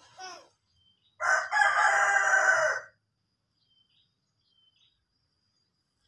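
A rooster crowing once: a single loud call lasting a little under two seconds, starting about a second in.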